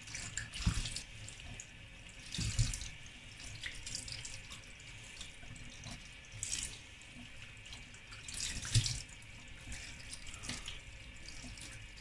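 Kitchen tap running into a sink while pieces of raw mackerel are washed by hand, the water hissing steadily. A few short, louder thumps come as the fish pieces are handled.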